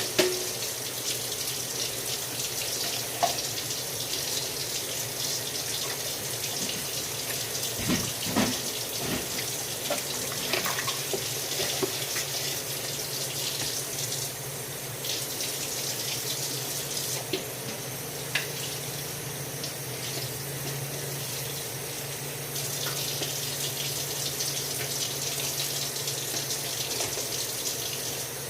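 Tap water running steadily into a sink, with a few scattered knocks and clinks, the loudest about eight seconds in.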